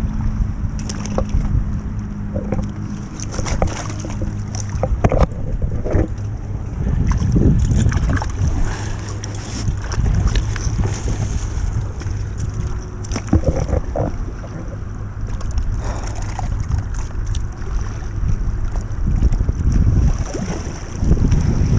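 Wind rumbling on the microphone of a body-worn camera, with scattered clicks and rustles of clothing and gear rubbing against it.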